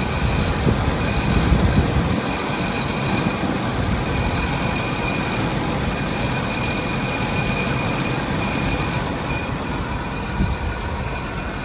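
1987 Jaguar XJ6's fuel-injected inline-six idling smoothly with the bonnet open, still cold shortly after a cold start. A faint high whine comes and goes over the steady running.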